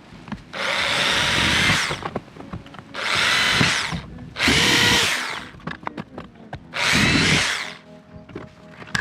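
Power drill run in four short bursts of about a second each, its motor whine sagging slightly in pitch under load as it drills holes in the plastic of a Toyota Prado's centre console.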